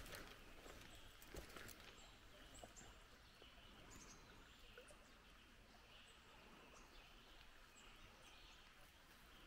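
Near silence in woodland: a faint steady hush from the creek, a few soft footsteps in the first two seconds, and scattered faint chirps of small birds.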